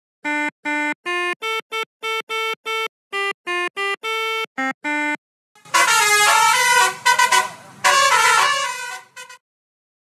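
Simulated 'basuri' bus musical horn from a phone app, played as a tune of about fifteen short separate horn notes on a few pitches. About five and a half seconds in it turns to a louder stretch of overlapping horn tones, which stops about nine seconds in.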